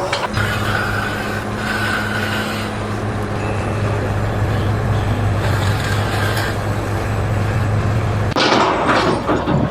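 A motor running with a steady low hum and noisy clatter over it. The hum stops abruptly about eight seconds in and a few sharp knocks follow.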